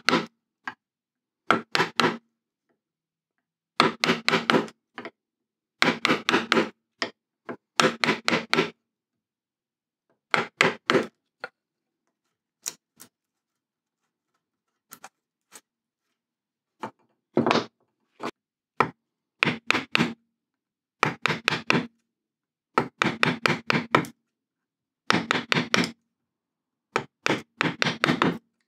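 A chisel being driven into beech with quick, light blows, in runs of four to six strikes with short pauses between, chopping a recess deeper along a knife line. A few single taps stand alone in the middle.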